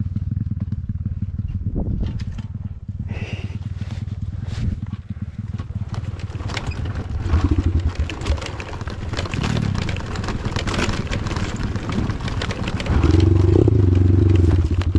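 Pit bike's small single-cylinder engine running under changing throttle on a rough dirt trail, with wind noise and rattling over the bumps. It gets louder about two seconds from the end.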